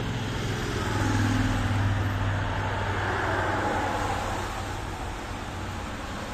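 A car passing on a wet road, its tyres hissing on the wet surface, swelling about a second in and fading away over the next few seconds, over steady traffic noise.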